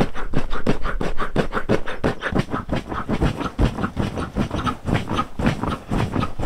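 A rapid, uneven string of breathy puffs, about seven or eight a second, from a person blowing up an air mattress by mouth at its valve, in sped-up footage.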